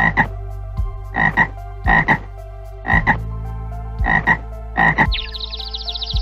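An animal call repeated six times, each a quick double pulse, about one a second. A rapid series of high, falling bird chirps starts near the end.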